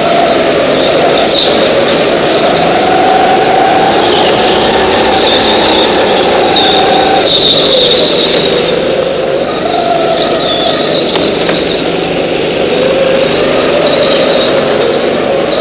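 Go-kart engines running, their pitch rising and falling with the throttle, with tyres squealing in short, high stretches through the corners.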